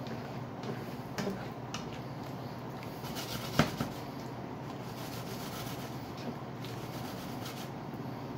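Spatula stirring and scraping through apple slices in cream sauce in a nonstick skillet, with one sharp tap of the spatula against the pan about three and a half seconds in, over a steady background hum and hiss.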